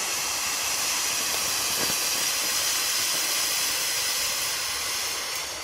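Ground fountain firework spraying sparks with a steady, hissing rush that dies away near the end.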